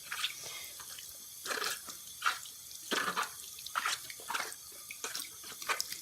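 Warm tap water running and splashing irregularly over a rubber RC car tire as the WD-40 is rinsed out of it.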